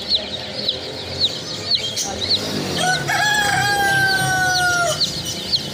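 Baby chicks peeping continuously in rapid, high chirps. About three seconds in, a rooster crows once: a long call of about two seconds that sinks slightly in pitch toward its end.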